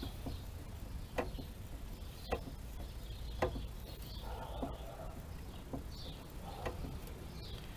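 Fuel filler door hinge of a 2009 Nissan Cube being worked back and forth, freshly sprayed with lubricating oil. It gives short, quickly falling squeaks about once a second: the hinge is still sticking and squeaky.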